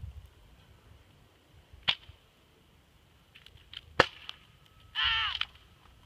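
A toy foam-dart blaster firing twice, sharp snaps about two seconds apart with fainter clicks between them. A short high-pitched cry follows about five seconds in.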